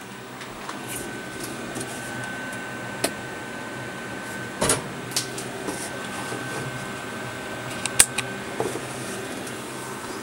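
A 12-volt electric fan running with a steady motor hum and a thin steady whine. Several sharp knocks and clatters come from things being handled, the loudest about eight seconds in.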